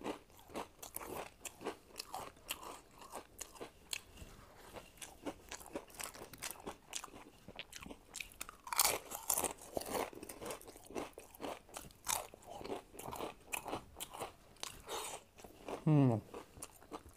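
Crisp papad being bitten and chewed close to a clip-on microphone, with rapid crackly crunches. A short falling hum from the eater comes near the end.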